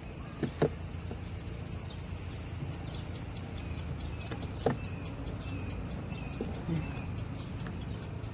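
Outdoor background: a steady low hum, a bird's short falling chirps repeated several times, and a rapid, even high ticking that starts about a third of the way in, with a few light knocks.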